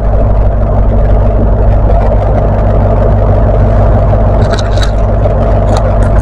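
Diesel train engine running steadily with a loud, even low hum, with a few short high chirps about four and a half to six seconds in.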